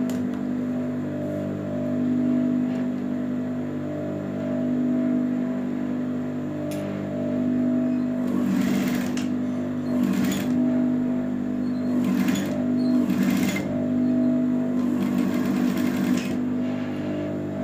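Juki industrial sewing machine humming steadily, with short runs of stitching in the second half: four brief runs, then a longer one near the end.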